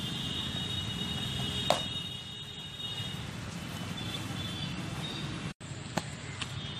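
Cricket bat striking a leather cricket ball with a single sharp crack about two seconds in, followed by a second, weaker crack near the end, over steady outdoor background noise with a high, thin tone in the first few seconds.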